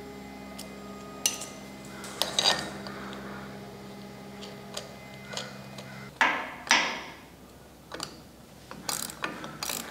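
Small metallic clicks and clinks of hand tools and brake cable hardware being worked at a rear disc brake caliper, with two louder rattles about six and seven seconds in. A steady low hum underneath cuts off about six seconds in.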